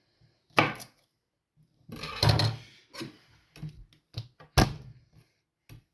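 Kitchen knife knocking on a wooden cutting board while garlic cloves are trimmed, with several sharp, unevenly spaced knocks and one longer scraping thud.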